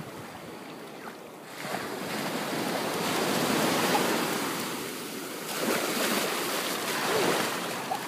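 Small surf breaking and washing up the shore, a steady rush that swells twice, first building to a peak about halfway through, then again near the end.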